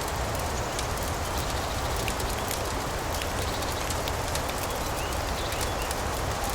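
Fireplace crackling: frequent small pops and snaps over a steady rushing noise with a low rumble.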